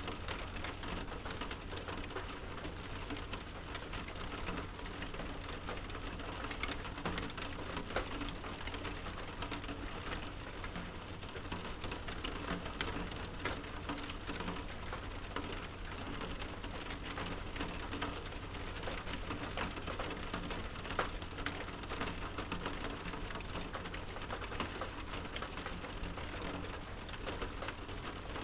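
Rain pattering steadily on a window pane: a dense, even spray of many small drop ticks.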